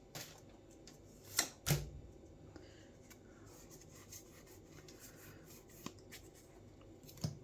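Trading cards being handled: faint rubbing and sliding of cards, with two short taps about one and a half seconds in and a few fainter clicks later.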